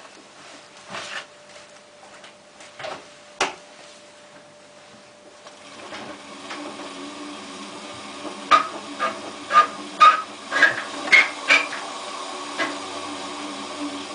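Hotpoint Ultima WT960 washing machine's drum starting to turn about six seconds in, with a steady motor hum. From about eight seconds the drum knocks loudly against the machine, roughly twice a second, as an unbalanced load rocks it back and forth.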